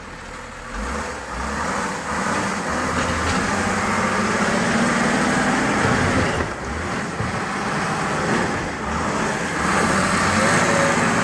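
A truck engine running hard under load, straining against a load of heavy tree trunks. It builds over the first second, then holds loud and steady.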